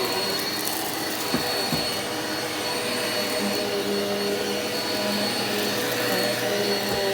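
Vacuum cleaner running steadily over carpet, with a steady high-pitched whine from its motor.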